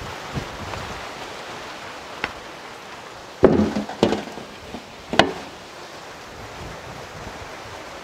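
Whole skinned goat carcass set down and handled on a large aluminium platter: three loud knocks against the metal about three and a half, four and five seconds in, over a steady hiss.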